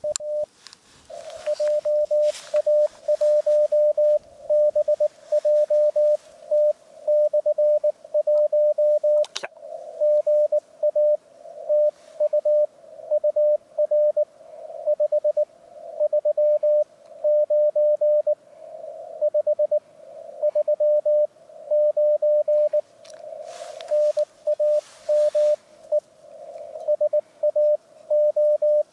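Morse code (CW) from an amateur radio transceiver's speaker: a single tone just under 600 Hz keyed on and off in dots and dashes at about 15 words per minute. Two stretches of hiss sit behind the tone, near the start and about two-thirds of the way through.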